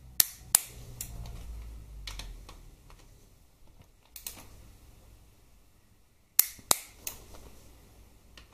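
Click-type torque wrench clicking as it reaches set torque on the screws of a Harley-Davidson Twin Cam's transmission side cover. A sharp pair of clicks comes just after the start and another pair about six and a half seconds in, with fainter clicks between.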